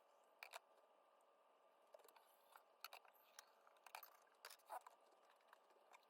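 Near silence: faint room tone with a scattering of soft, small clicks.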